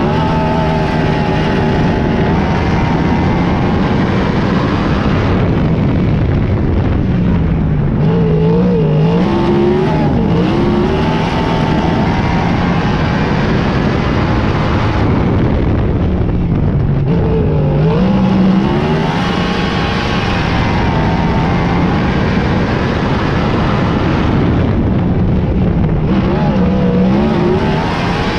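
Lightning sprint car engines racing around an oval, the engine note dropping and swinging back up about every eight to nine seconds as the cars lift for the turns and accelerate down the straights.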